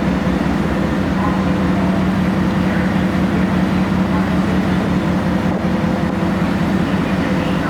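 Car ferry's engines droning steadily, a deep even hum with a rushing noise over it, heard aboard while the ship is underway.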